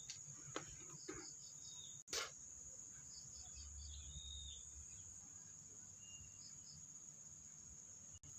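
Crickets chirping in a faint, steady high-pitched drone, with a few soft clicks.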